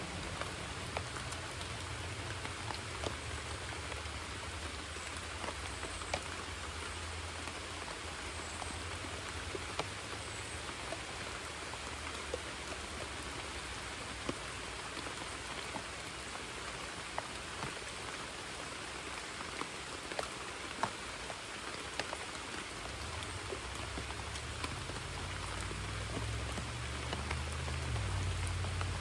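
Steady rain falling on a creek's surface, an even hiss dotted with many sharp ticks of single drops. A low rumble sets in about two-thirds of the way through and grows stronger toward the end.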